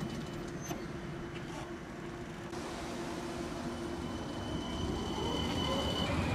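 CAF Urbos 100 tram moving off from a stop and passing close by, with a steady electric hum. About two-thirds in, a whine rises in pitch and grows louder as the traction motors speed up.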